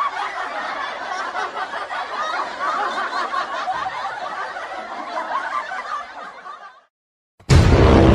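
Laughter sound effect that fades out near the end. After a brief silence, music starts suddenly just before the end.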